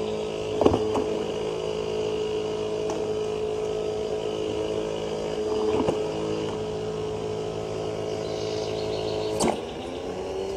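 A steady machine hum with a few faint clicks and a short knock near the end.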